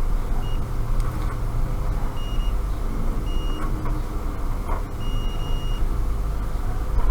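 Multimeter continuity beeper giving four short high beeps as the probes touch points on a game console logic board during a check for shorted power lines, the last beep held for nearly a second. A steady low hum runs underneath.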